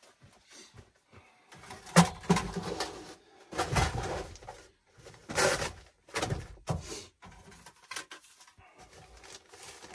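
Folding portable fire pit being unpacked and set out on a truck tailgate: a string of short metal clanks and scrapes from its sheet-metal panels and grate, mixed with canvas bag rustling. The louder handling bursts come about two, four and five and a half seconds in.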